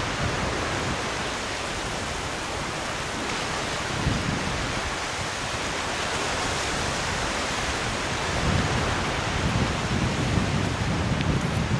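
Steady hiss of North Sea surf and wind on the beach, with low rumbling wind gusts on the microphone, strongest from about eight seconds in.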